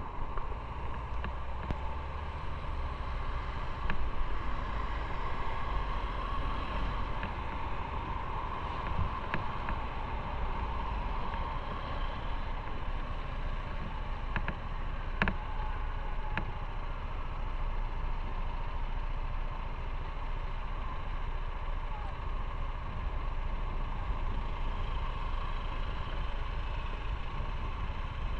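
Motorcycle running steadily while being ridden, engine and road noise mixed with a low wind rumble on the microphone, with a few short clicks.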